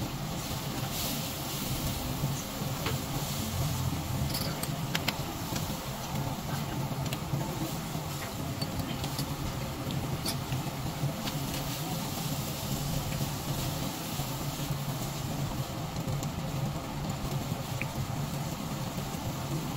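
Beef large intestine (daechang) and tripe (yang) sizzling on a wire grate over charcoal, with scattered small pops and the occasional click of metal tongs against the grate, over a steady low hum.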